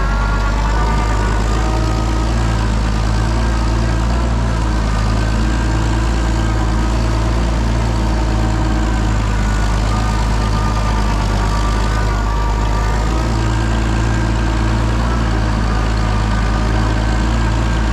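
Oliver 77 tractor's six-cylinder engine running steadily, with only slight wavers in speed.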